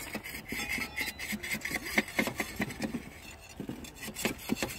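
Steel bars scraping and clinking against the rail and freshly poured thermite weld as the mould packing is knocked away. The sound is an irregular run of short scrapes and taps.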